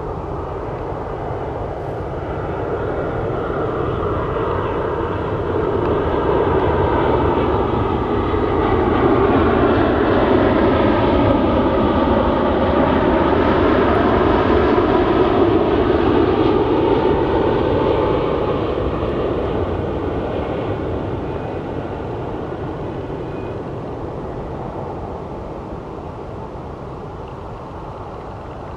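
Boeing 787-9 airliner's jet engines passing by on approach with gear down: a steady rumble that swells to its loudest around the middle and fades as the aircraft moves away.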